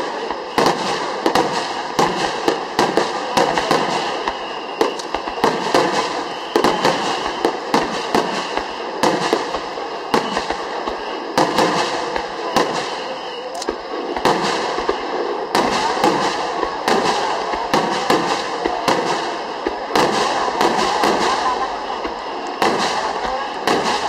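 Star mine fireworks barrage: aerial shells launching and bursting in quick succession, a dense run of sharp bangs several a second with no break.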